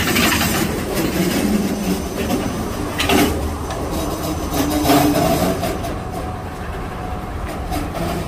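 Freight train cars rolling along jointed track with a steady rumble and clatter of wheels, with sharper knocks about three and five seconds in.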